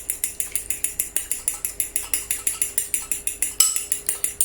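Egg yolk and milk being beaten in a small bowl: a utensil clinks rapidly and evenly against the bowl, about seven strokes a second.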